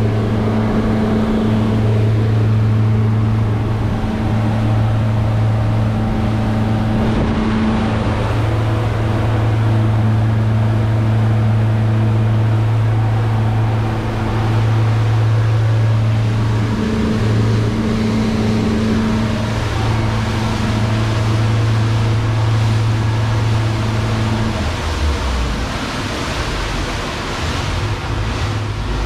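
Boat's outboard motors running steadily at cruising speed, a constant engine hum over rushing water and hull noise. About 25 seconds in, the engine hum drops away, leaving mostly wind and water noise.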